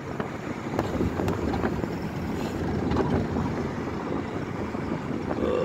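Road and engine noise inside a moving car's cabin, a steady rumble.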